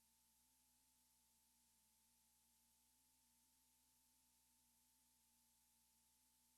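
Near silence: a faint even hiss with two faint steady tones, one high and one low.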